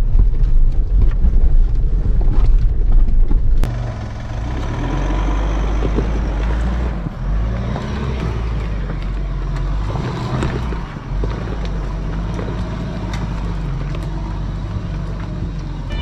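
Mitsubishi Pajero Sport's common-rail diesel engine running at low revs while driving off-road, its note rising and falling with the throttle. A louder, deeper rumble in the first few seconds changes abruptly, about four seconds in, to a quieter, steadier engine sound.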